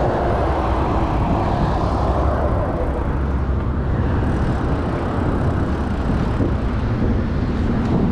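Steady rumbling noise of riding a mountain bike on a dirt trail: wind over the microphone and tyres rolling on sand and dirt.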